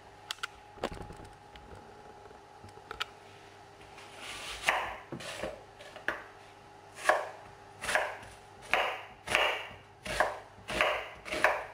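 Kitchen knife chopping an onion on a wooden cutting board: a few light knocks at first, then from about four seconds in a steady run of chops, about three every two seconds.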